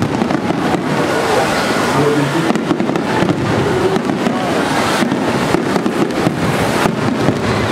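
Aerial firework shells bursting in quick succession during a display finale: a dense, continuous barrage of bangs and crackling without pauses.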